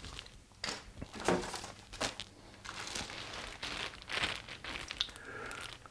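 Clear plastic bags holding sprues of injection-moulded kit parts crinkling and rustling as they are handled, in irregular bouts.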